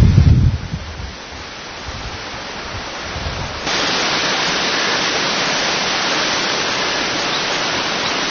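Wind buffeting the camcorder microphone, fading out about a second in, then a low rustle; about three and a half seconds in, the sound jumps to a steady, even hiss that carries on.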